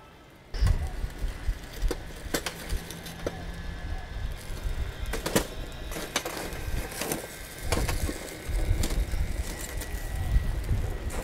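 Charcoal fire in a stainless-steel firepit crackling with scattered sharp clicks. In the second half, metal tongs knock and scrape as they move the coals, while gusts of wind rumble on the microphone.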